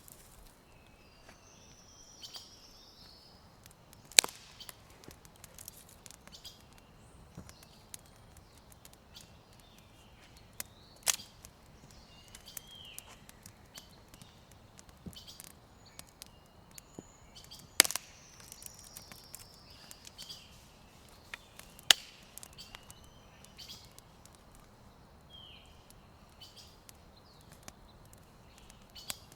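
Small birds chirping and calling at intervals, broken by four loud, sharp cracks spread through the stretch. The cracks are the loudest sounds.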